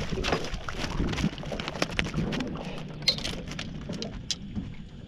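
A freshly landed flathead thrashing in the boat, a rapid run of irregular knocks and slaps as it shakes the hook free, thinning out over the last couple of seconds.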